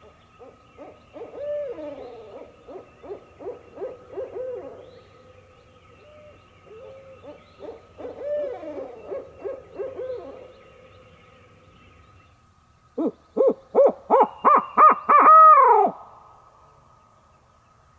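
Barred owls calling in two bouts of wild caterwauling, rapid rising-and-falling hoots. About thirteen seconds in, a much louder, closer run of sharp barred-owl hoots ends in a long falling note: a hunter's owl locator call, blown to make turkeys gobble.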